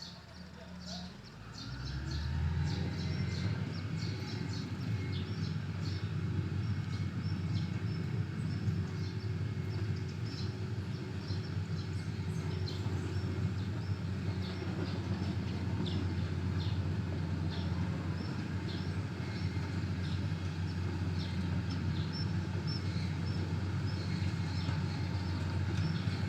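Heavy road-repair machinery's engine running steadily with a low rumble, coming in loud about two seconds in. Birds chirp throughout.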